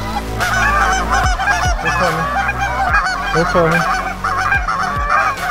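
Flock of Canada geese honking, many overlapping calls at once, as they come in to land.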